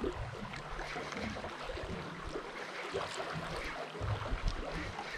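Wind and choppy water lapping against a stationary boat's hull, with gusts buffeting the microphone now and then.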